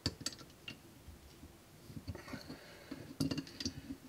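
Light metallic clicks and knocks of an adjustable (Crescent) wrench working on the dishwasher's water-line fitting under the sink. A few clicks come at the start and a quicker cluster about three seconds in.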